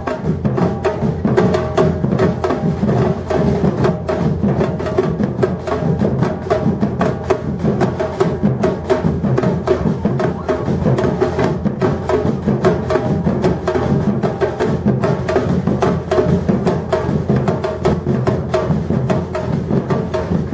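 Batucada percussion ensemble playing live: massed drums and hand percussion in a dense, steady, driving rhythm.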